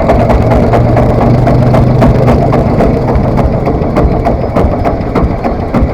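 Three-wheeled farm tractor's engine running steadily, with a rapid, even knocking.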